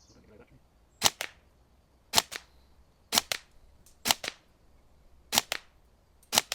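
Tokyo Marui Next Gen Recoil Shock electric airsoft guns firing single shots in semi-auto, six sharp cracks roughly a second apart, each with a quieter second click just after.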